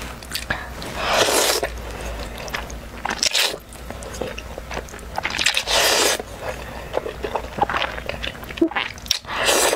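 Jajangmyeon (black bean sauce noodles) slurped in big mouthfuls: four slurps, spread through, each about half a second long, with wet chewing clicks between them.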